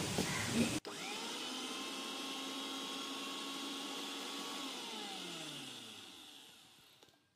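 Mixer grinder motor running with a steady whine as it grinds a thick chocolate paste in its small steel jar. It starts abruptly about a second in, then is switched off about five seconds in, its pitch falling as it winds down to a stop.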